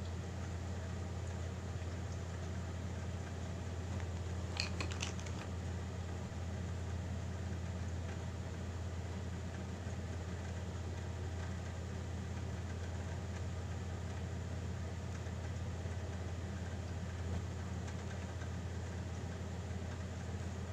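Steady low mechanical hum with no change in pitch or level, with a short cluster of clicks about four and a half seconds in.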